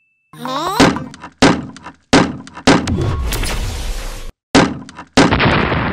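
Cartoon sound effects: a string of about six heavy thuds, each with a short ringing tail. The last thud is followed by a rushing hiss that fades away.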